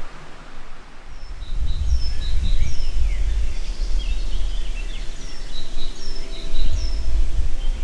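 Forest birdsong: several birds singing repeated high chirps and short whistled phrases, over a loud low rumble.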